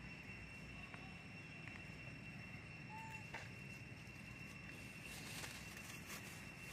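Faint forest ambience: a steady high-pitched insect drone, with a few soft clicks and rustles and one brief chirp about three seconds in.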